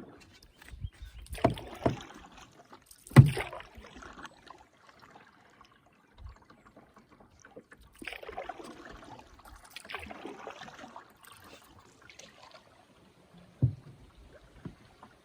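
Canoe being paddled: paddle strokes swishing through the water, with a few knocks against the canoe, the loudest about three seconds in and another near the end.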